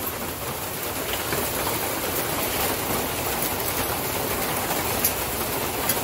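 A steady dense hiss with two sharp clicks about five and six seconds in, as hot coals from a wood fire are shifted onto a pot lid.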